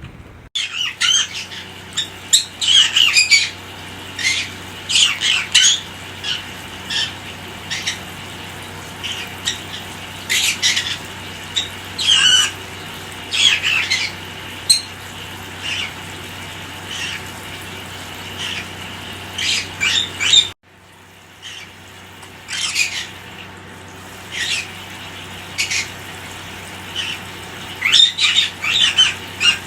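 Pet parrots squawking in many short, sharp calls, over a steady low hum. The sound drops out briefly about twenty seconds in.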